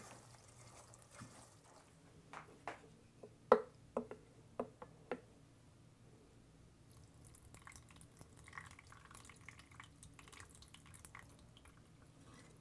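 Spiced clarified butter dripping from a mesh strainer into a plastic pitcher: a few separate faint drips, the loudest about three and a half seconds in, then a fainter scatter of small drips later.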